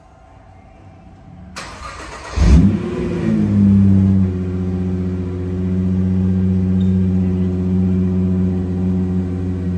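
2024 Nissan GT-R NISMO's twin-turbo 3.8-litre V6 starting: a brief whir of the starter, then the engine catches with a loud flare of revs about two and a half seconds in, falls back, and settles into a steady idle.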